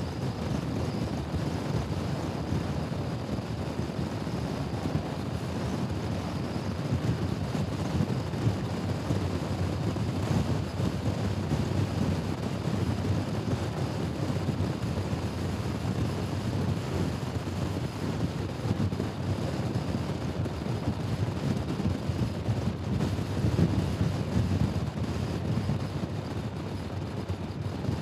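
Steady rush of wind on the microphone with road noise while riding a Honda Forza scooter at speed. The noise is low and even throughout, with no engine note standing out from it.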